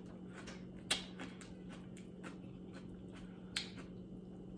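Quiet close-miked eating: faint mouth clicks while chewing, with two sharper clicks about a second in and again near the end, over a faint steady hum.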